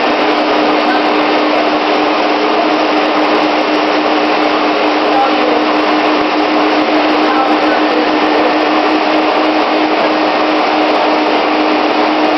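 Three standard household vacuum cleaners hooked together, running steadily at full speed: a loud, even rush of air with one steady motor pitch, sucking through a hose into a small foil tunnel.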